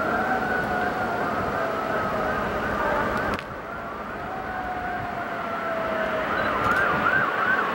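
Emergency vehicle siren: a fast up-and-down yelp over a slower, gently falling wail, with a brief dip in level about three and a half seconds in.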